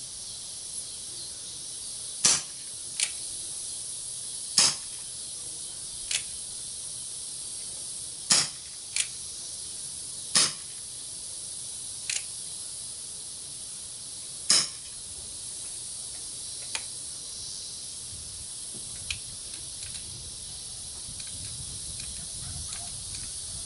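Umarex Colt Single Action Army CO2 BB revolver firing five shots, each a sharp pop, two to four seconds apart, with fainter clicks in between. A steady high hiss runs underneath.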